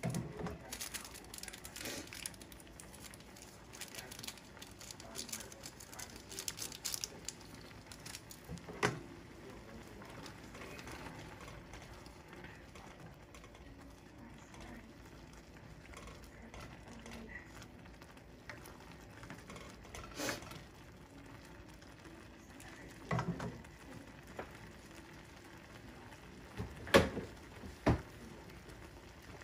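Pot of instant noodles bubbling on the stove, with a plastic ladle stirring and knocking against the stainless steel pot now and then: a handful of sharp knocks, the loudest two near the end.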